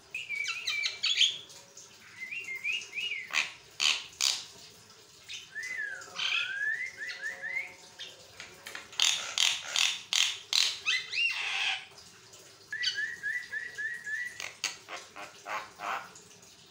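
Javan myna (jalak kebo) chattering and singing without pause: a mix of whistled notes gliding up and down, harsh squawks and raspy clicks, with a quick run of short repeated chirps a little past the middle.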